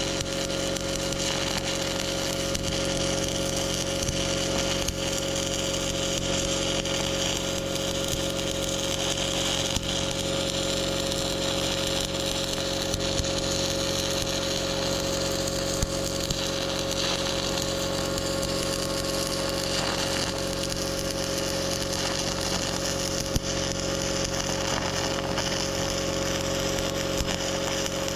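Stick welding arc crackling steadily as the electrode burns along a weld bead, with a steady hum underneath.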